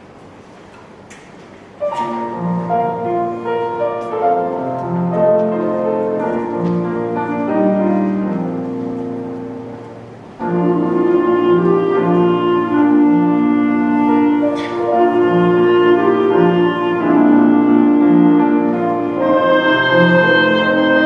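Orchestra playing. After a quiet pause it comes in about two seconds in, and the phrase dies away near the middle. A louder, fuller passage of held chords then comes in and continues.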